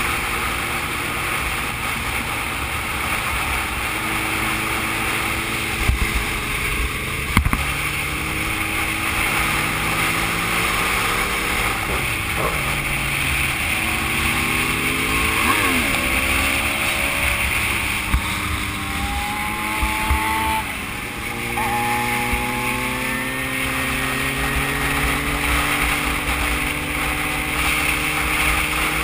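Motorcycle engine under way at highway speed, its pitch climbing through the gears in steps, dropping briefly about two-thirds of the way in, then climbing again, over steady wind noise on the camera. Two short knocks sound early on.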